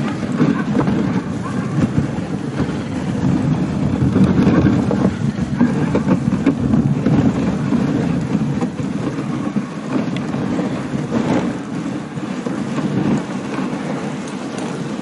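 Dog sled pulled by a team of Siberian huskies, running over a packed snow trail: a steady rough rumble and scrape of the sled on the snow.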